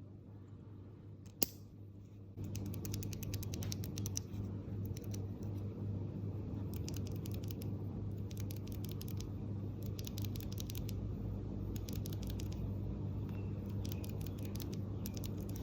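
SP-STAR x Kon Momo tactile keyboard switches clicking in quick runs of small, sharp plastic clicks, as they are pressed over and over. One sharp click comes about a second and a half in. From a couple of seconds in, the runs of clicks sit over a steady low hum.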